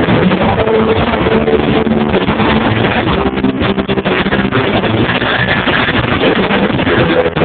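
Rock band soundchecking: loud distorted electric guitars and bass with drums, heard as a dense, muddy wash through a low-quality recording.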